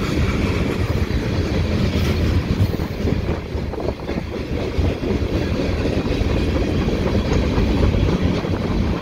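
CN freight train of tank cars and covered hoppers rolling past in a steady rumble, with the clickety-clack of steel wheels over the rail joints.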